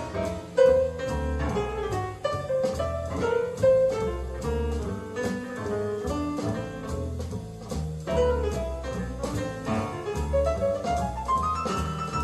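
Instrumental jazz passage with a double bass moving note by note under piano and horn lines, played back through Elac Debut Reference DBR62 bookshelf speakers.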